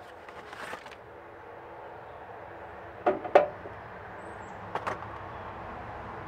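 Handling noise as a cardboard timing-belt box is opened and a new rubber timing belt is slid out of it, with two sharp knocks close together about three seconds in and a quicker pair of clicks near five seconds.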